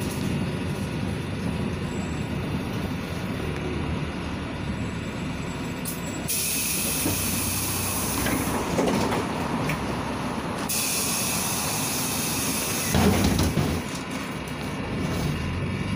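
LiAZ 5292.67 city bus running along the road, heard from inside the passenger cabin: a steady engine and road rumble. Twice, a loud hiss starts and stops abruptly, each lasting about two seconds.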